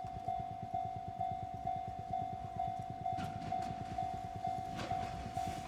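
Japanese level-crossing warning bell ringing in an even, repeating ding about twice a second, the signal that a train is approaching.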